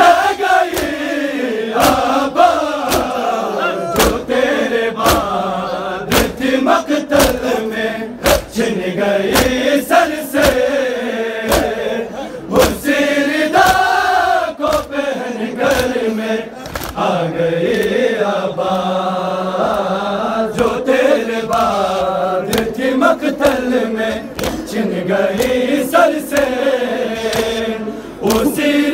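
Large group of men chanting a noha lament in unison. Sharp slaps of hands on bare chests (matam) keep a steady beat, about one and a half slaps a second.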